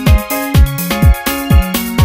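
Upbeat dance music with a programmed drum beat: a deep, falling kick about twice a second under a bass line stepping between a few notes and steady held chords.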